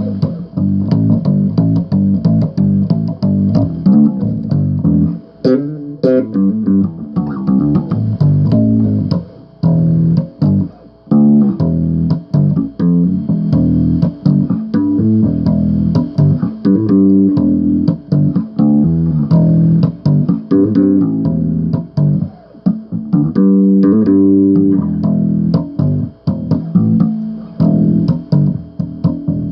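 Solo bass guitar riffing: a run of quick plucked notes with short breaks between phrases.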